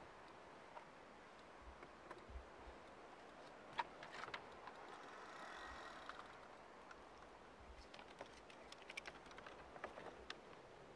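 Near silence with faint, irregular clicks and taps of fishing tackle and boat being handled during a fight with a fish, one sharper click about four seconds in.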